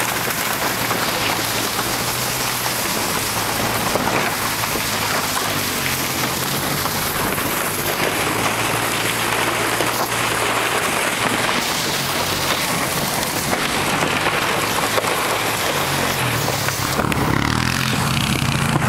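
Truck bed liner skidding over snow as it is towed: a steady, loud rushing hiss. The towing ATV's engine runs low underneath.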